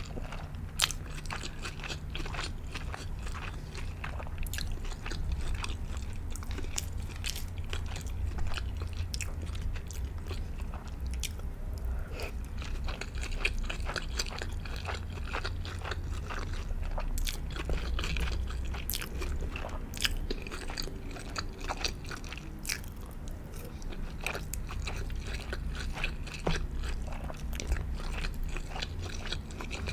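Close-miked chewing and biting of sushi, with many irregular wet clicks and crunchy crackles of the mouth and food.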